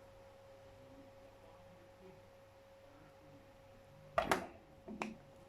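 Faint steady hum, then near the end a sharp snip followed by a click about a second later: a cutter trimming the Ethernet cable's wires, which are not cutting cleanly.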